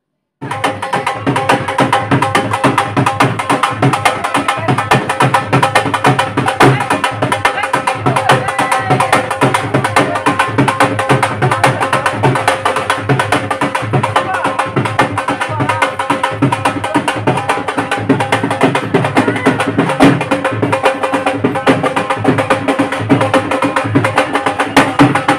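Dhol drum beaten in a fast, steady rhythm for dancing, starting about half a second in, with people's voices underneath.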